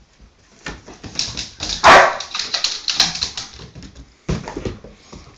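German Shepherd whining, yelping and barking in short outbursts, with the loudest bark about two seconds in: the excited noise she makes over a torch light she is trying to catch.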